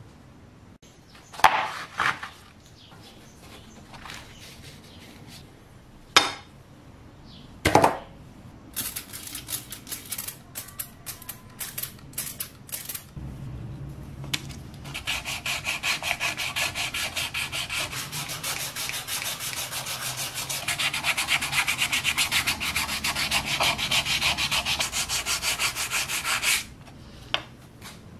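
A few sharp clicks and clinks, then hand sanding of a toy revolver's wet grip panels: irregular rubbing at first, then a long run of fast, even back-and-forth strokes that stops abruptly near the end.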